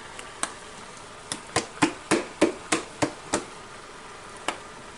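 Sharp taps of a kitchen utensil, a quick run of about eight at roughly three a second, with a couple of single taps before and one after, while mustard is being added to a stir fry.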